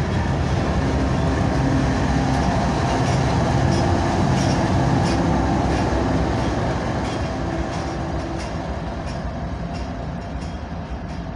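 Rear distributed-power locomotive of a freight train, a BNSF GE ES44AC, passing close by with its diesel engine running and steel wheels clicking over rail joints, then fading slowly as it pulls away over the second half.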